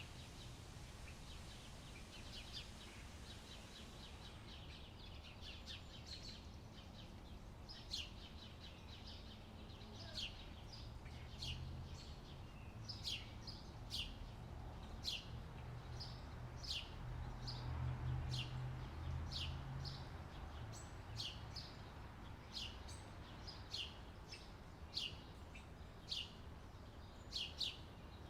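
Birds chirping: a short, sharp chirp that drops in pitch, repeated roughly once a second, over a low background rumble that swells twice in the middle.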